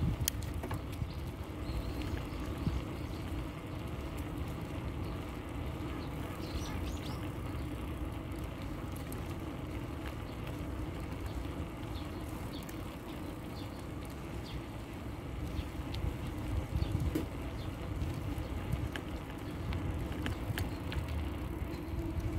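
Steady low rumble of a bicycle rolling along an asphalt path, with wind on the microphone and a faint steady hum; a few faint bird chirps.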